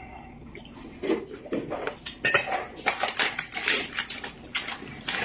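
Chopsticks and tableware clinking and scraping against bowls and plates: a quick, irregular run of clicks and clatters that starts about a second in.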